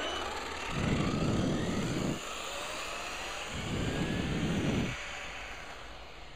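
HPI Savage Flux electric RC truck's brushless motor giving a thin whine that rises in pitch as it speeds away and fades, with two bursts of low rumble over it.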